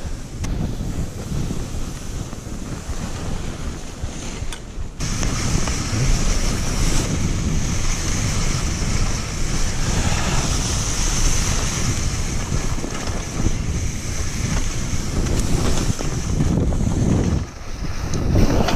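Skis rushing and hissing over snow on a fast downhill ski-touring descent, with wind buffeting the microphone. The rushing gets louder and brighter about five seconds in and dips briefly near the end.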